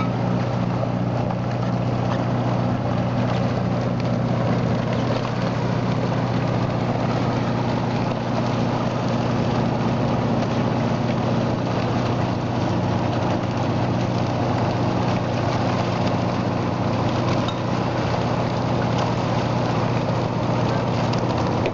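Fishing boat's engine running steadily with a low hum, under the splashing of salmon and water in a purse seine net being hauled up alongside the hull.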